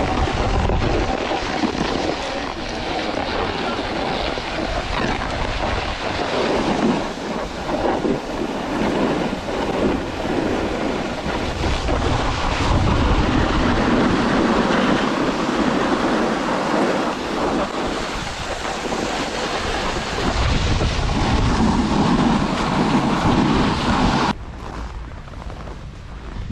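Snowboard sliding and scraping over snow, with wind rushing over the microphone in a loud, uneven rush. The noise drops sharply about 24 seconds in.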